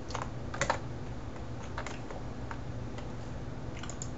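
About eight light clicks at a computer, unevenly spaced, over a steady low hum.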